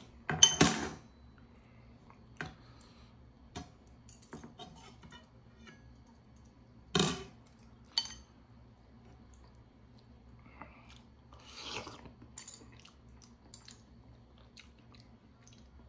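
A person eating instant ramen noodles: loud slurps about half a second in and again about seven seconds in, with chewing and scattered light clicks of metal chopsticks against the bowls.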